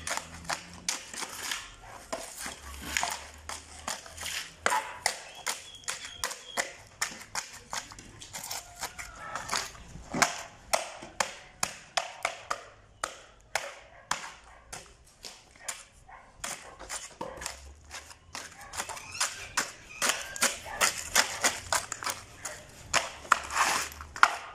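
A shovel jabbing and packing a wet mix of cement, soil, sand and whole unshredded trash into a wooden block mould: a quick run of sharp strikes and scrapes, several a second.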